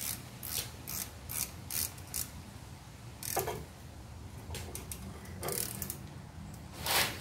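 Socket ratchet clicking in quick strokes as it tightens the transmission fill plug, then a few slower, louder clicks and one louder still near the end.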